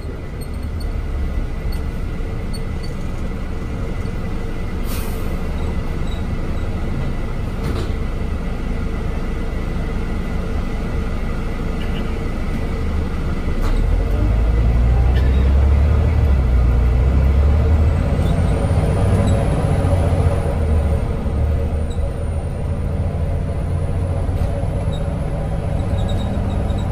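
Scania N94 Omnidekka double-decker bus's nine-litre five-cylinder diesel engine running as the bus drives along, heard from inside the passenger saloon. About halfway through the rumble grows louder and deeper, and a thin high whine rises and then holds near the end.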